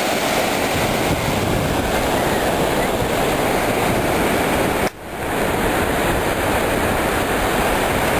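Ocean surf washing up onto a sandy beach: a steady rush of breaking waves, broken by a short dropout about five seconds in.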